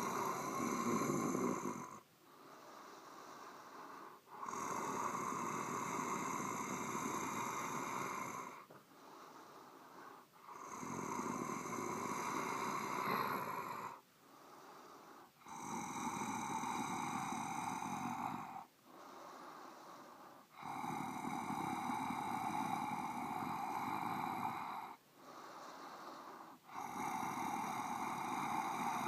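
Creepy, raspy breathing, horror-monster style: slow, drawn-out breaths in a steady cycle. Each loud breath lasts about four seconds and is followed by a shorter, quieter one, about six times over.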